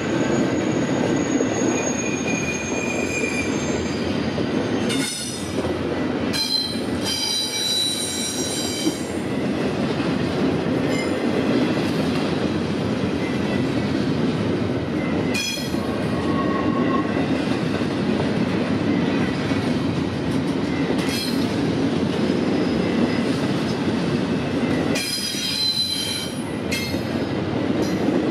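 Freight train cars rolling past with a steady rumble of wheels on rail, broken several times by short bouts of high-pitched wheel squeal.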